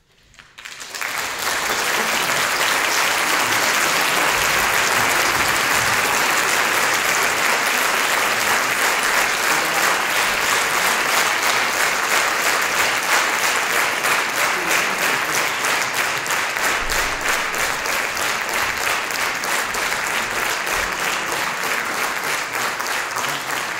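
Concert-hall audience applauding at the end of an orchestral performance, breaking out of silence and building to full strength within the first two seconds. From about the middle on, the clapping falls into a regular beat.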